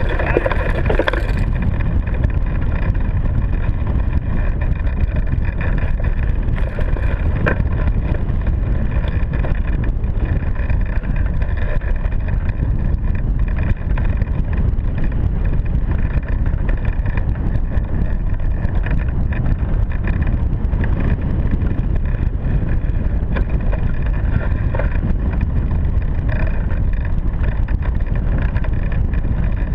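Airflow buffeting a hang glider's keel-mounted camera microphone through launch and flight, a steady low rushing noise.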